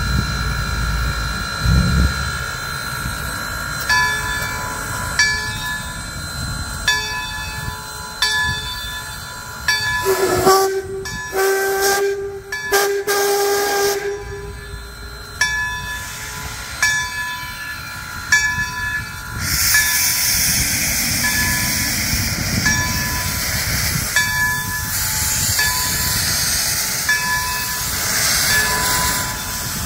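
Baldwin 0-6-0 steam switcher No. 26 approaching, with a bell ringing in a slow, even rhythm, about one strike every second and a half. About ten seconds in, the steam whistle sounds a long blast. From about two-thirds of the way through, a loud steam hiss from the locomotive's open cylinder cocks joins the bell.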